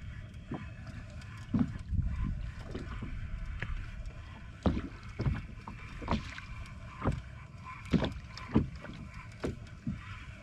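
Small waves slapping against the side of a small drifting boat, a short splash about once a second at uneven intervals, over a steady low rumble.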